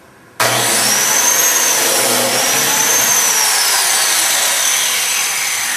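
Biscuit (plate) joiner's electric motor switched on suddenly and running loud for about five seconds while cutting a biscuit slot into wood. Its pitch rises and falls twice, then sinks toward the end.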